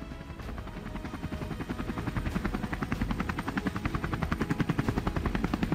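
Helicopter sound effect: the rapid, even chop of the rotor blades, growing louder over the first couple of seconds and then holding steady.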